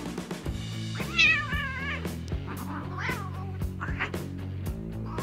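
Cat meowing: one wavering, drawn-out call about a second long, then two shorter calls, over background music with a steady beat.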